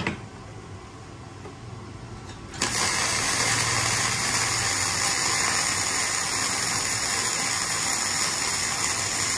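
Kobe MIG-272K gasless (flux-core) MIG welder welding thick steel: after a short quiet, the arc strikes about two and a half seconds in and then runs steadily as a continuous, loud, even welding noise.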